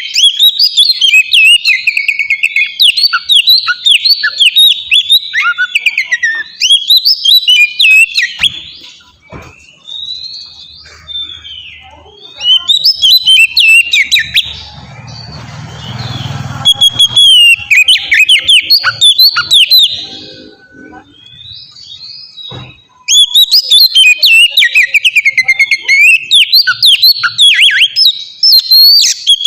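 Oriental magpie-robin (kacer) singing a loud, fast and varied song of sweeping whistled notes, in long bursts broken by two pauses, about a third and two-thirds of the way through.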